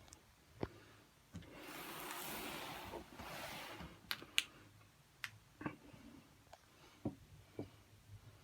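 A cardboard toy box being handled: two scraping, rustling slides about a second and a half in, then a scattering of sharp clicks and light knocks.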